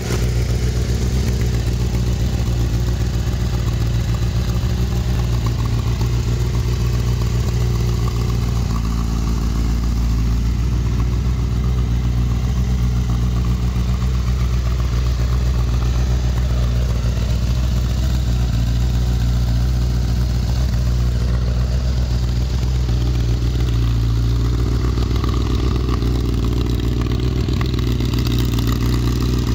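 Honda CBR1000RR Fireblade's inline-four engine idling steadily through a Pipe Werx aftermarket exhaust silencer.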